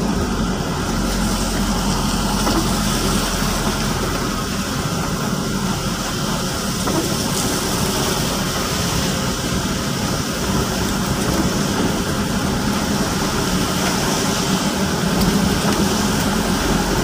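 Car driving on a rain-wet road, heard from inside the cabin: a steady low engine hum under the even hiss of tyres on wet asphalt and light rain.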